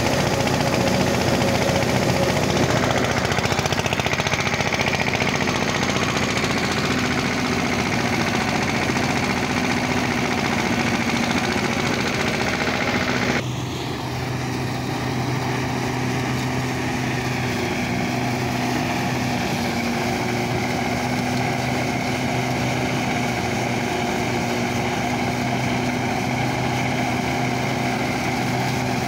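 A D.K. Champion 165DI mini tractor's diesel engine runs steadily under load, driving a thresher through its PTO. About halfway through, the sound changes abruptly to the engine and thresher running together with a steady hum.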